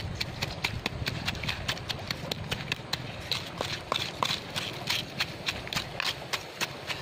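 Pestle pounding in a small mortar, crushing a red chili mix: a steady run of sharp knocks, about four a second.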